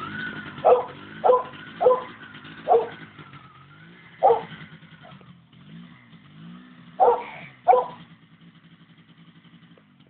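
MZ TS 250/1's single-cylinder two-stroke engine running and being revved, its pitch rising and falling a few times around the middle and dropping away near the end. A dog barks seven times over it, the barks louder than the engine.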